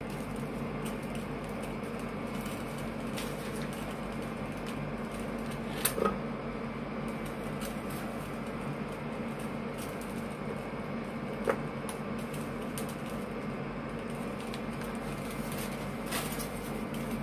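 Steady hum and hiss of an electric cooktop heating a nonstick frying pan, with a few short knocks, the loudest about six seconds in and another near twelve seconds, as cubes of butter are dropped into the pan to melt.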